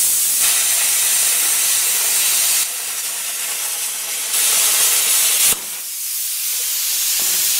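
Hypertherm Powermax 45 plasma torch cutting quarter-inch steel plate at maximum amperage: a loud, steady hiss of the arc and air blast. About five and a half seconds in, a click and the hiss drops to a quieter air hiss as the arc goes out at the end of the cut.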